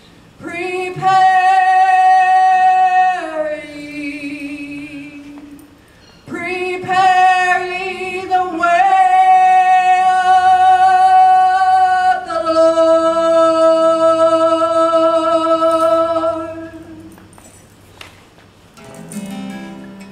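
Worship song: a woman singing three long, held phrases over soft acoustic guitar, then the acoustic guitar strumming on its own near the end.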